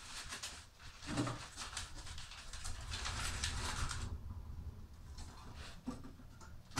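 Scraping and rustling from hand work at a wood-fired cookstove: rough bursts of rapid strokes over the first four seconds, then fainter scuffs.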